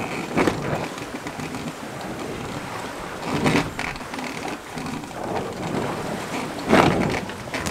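A slack sail flapping in too little wind as the sailboat rolls: irregular snaps over a steady rushing noise, with three louder snaps, the loudest near the end.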